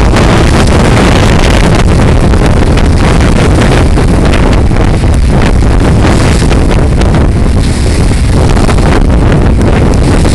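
Wind buffeting the microphone on the open deck of a passenger boat under way: a loud, steady rumble of wind, with the boat's running and the water beneath it mixed in.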